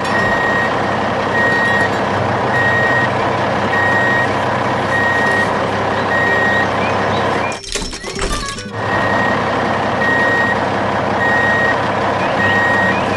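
A construction vehicle's reversing alarm beeping steadily, one beep a little more than once a second, over a continuous heavy engine sound. The beeping breaks off for about a second around eight seconds in, then resumes.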